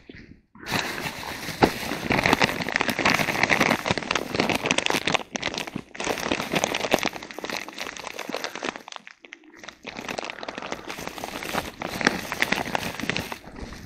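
Clear plastic bag crinkling and rustling right at the microphone as a hand rummages inside it around a packet of groundbait. The crinkling breaks off briefly about half a second in and again about nine seconds in.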